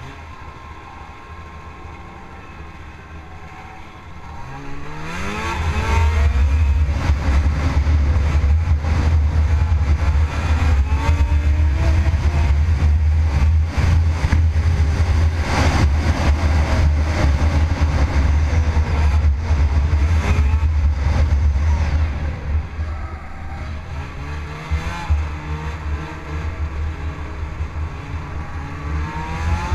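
Snowmobile engine accelerating from low revs about four seconds in and then running hard at high revs. It eases off about three quarters of the way through and revs up again near the end.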